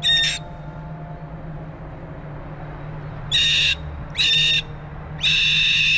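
Pet bird screaming: four loud, harsh calls, a short one at the start, then three more from about three seconds in, the last held for nearly a second. The screams come as the bird turns uneasy and agitated.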